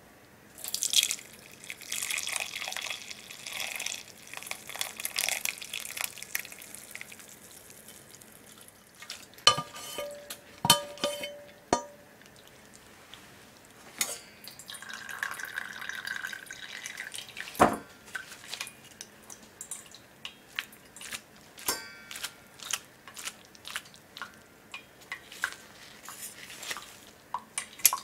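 Cooked vegetables and broth poured into a stainless steel conical strainer over a steel pot, a splashing pour for several seconds. Then metal clinks and ringing from the strainer and pot, a knock, and a run of small drips and taps as the liquid drains through.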